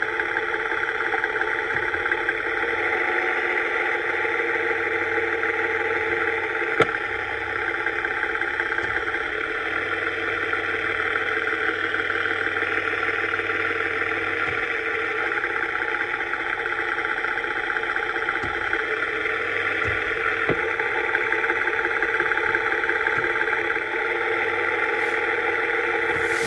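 2017 Toyota Highlander engine running steadily, with one sharp knock about seven seconds in. The noise is traced by the owner to a bad engine mount (torque strut).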